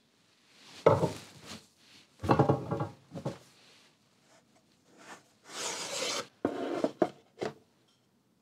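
Book press being opened and the pressed paper signatures handled: several bursts of rubbing and sliding, then a few sharp knocks near the end.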